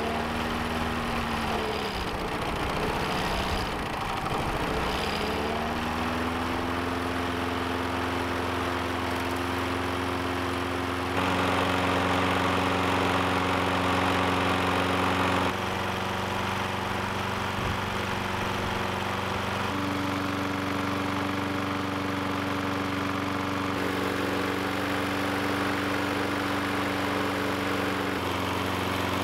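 Small single-cylinder lawn mower engine running on brake parts cleaner vapors, with no gasoline. It slows and picks back up in the first few seconds, then runs steadily, its speed changing slightly now and then. A louder hiss joins it for a few seconds in the middle.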